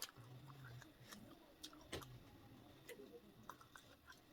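Near silence with quiet eating sounds: a few faint, scattered mouth clicks and smacks from chewing, and two brief low hums.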